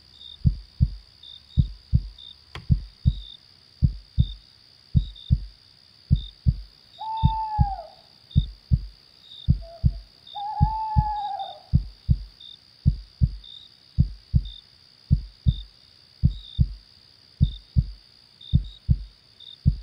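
A steady rhythm of heartbeat thumps is the loudest sound throughout. Over it an owl hoots twice, about seven seconds in and again about ten seconds in, each hoot falling slightly in pitch, with a short note between them. Underneath runs a high, steady cricket chirping.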